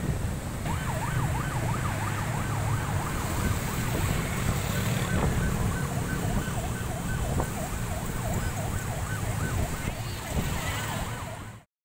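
Emergency vehicle siren in a quick rising-and-falling wail, about three cycles a second, over a steady low rumble; it all cuts off suddenly near the end.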